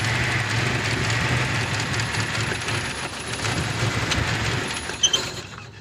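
Toyota 7K inline-four petrol engine idling roughly and unevenly while misfiring. The misfire is later traced to a dead number 4 spark plug. A couple of sharp clicks come about five seconds in, then the sound drops off suddenly.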